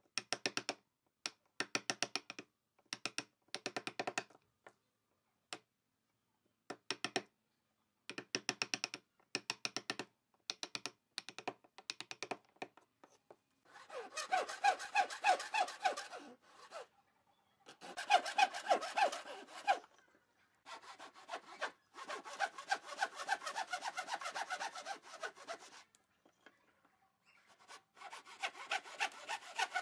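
A steel chisel paring wood in short, repeated scraping strokes. From about halfway through, a thin-bladed hand saw cuts across a wooden strip in fast back-and-forth strokes, with three brief pauses.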